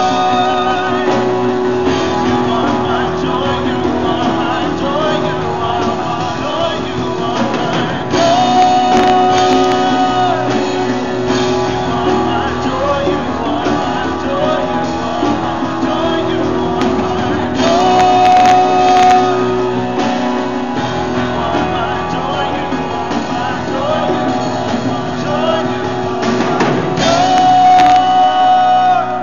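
A live praise band playing a rock-style worship song: singing over guitars, keyboard and drums, with long held notes about every nine seconds. The full band drops out abruptly right at the end.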